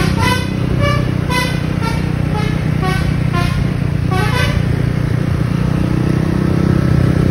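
Tour bus's basuri musical horn playing a tune of short notes at changing pitches, about two a second, for about four and a half seconds, over the steady low drone of a motor scooter's engine.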